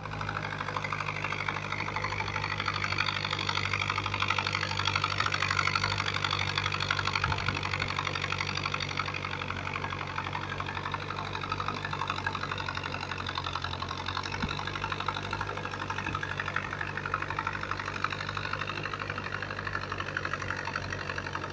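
Tractor engine running steadily, with a low, even drone and a rapid clatter.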